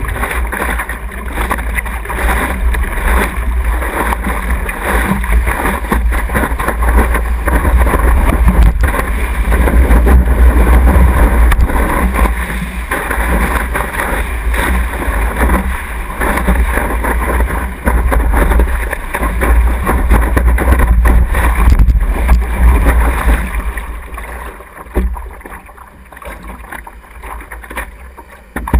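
Water rushing and splashing around a surfboard's nose as it is paddled into and rides a wave, with heavy low wind buffeting on the board-mounted microphone. The rushing dies down near the end as the board slows in calmer water.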